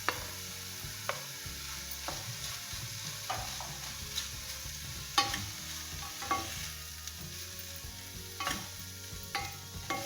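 A spoon stirring and scraping a thoran of ivy gourd, prawns and ground coconut paste in a hot pan, over a low sizzle. The spoon knocks against the pan roughly once a second, and some knocks ring briefly.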